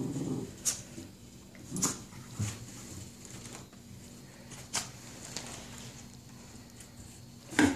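Scuffling at a cardboard box: a handful of sharp knocks and scrapes on the cardboard as a cat inside it, a small dog outside and a toddler's hands paw at it, the loudest knock near the end.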